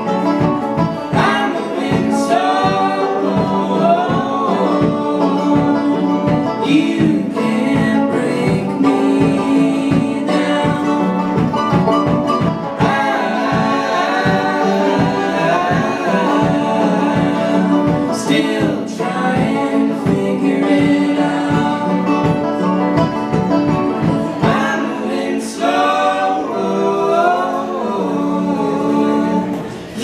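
Live folk song: banjo and acoustic guitar strummed in a steady rhythm under several voices singing in harmony. Near the end the instruments drop away and the voices carry on unaccompanied.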